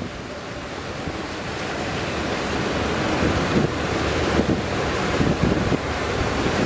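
Strong wind buffeting the microphone over breaking surf, the rushing noise growing steadily louder over the first few seconds.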